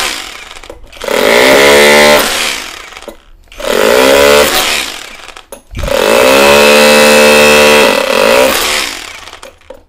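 HUKAN cordless brushless rotary hammer in chisel mode, hammering a chisel bit into a concrete block. It runs in three bursts of about two, two and three seconds; the motor pitch rises at each start and falls as it stops.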